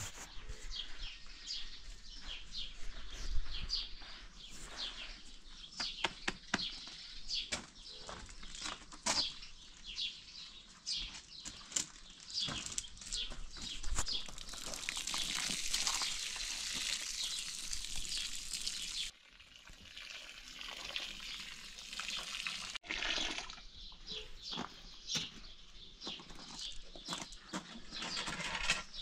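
Water pouring and splashing over a backdrop of birds chirping, with scattered clicks and knocks. The pouring is heaviest a little past halfway and cuts off suddenly.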